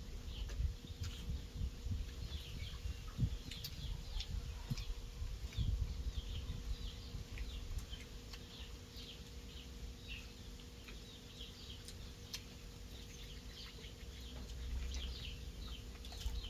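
Small birds chirping again and again in short, high, falling notes, over a low rumble and a faint steady hum.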